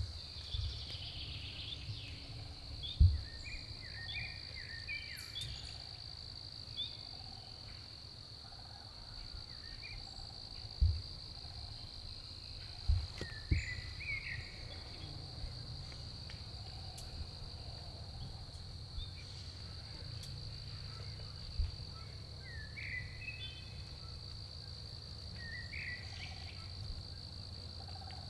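Steady high-pitched drone of an insect chorus in the woods, with short bird chirps now and then and a few low thumps near the microphone.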